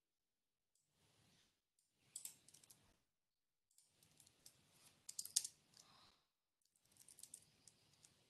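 Faint computer keyboard typing: short runs of key clicks, starting about two seconds in after near silence.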